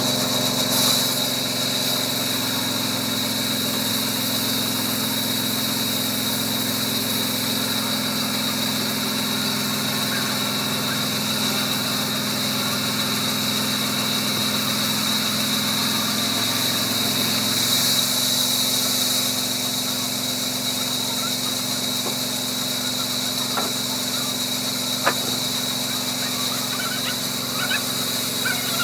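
Sawmill machinery running steadily, with a constant high whine over a low hum; a stretch of louder hiss comes about 17 seconds in, and there is a single sharp click near the end.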